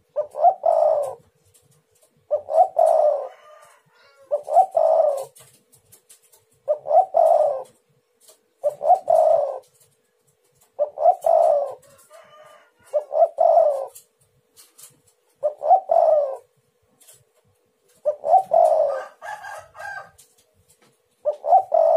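Spotted dove cooing: about ten repeated coo phrases, each about a second long, coming roughly every two seconds.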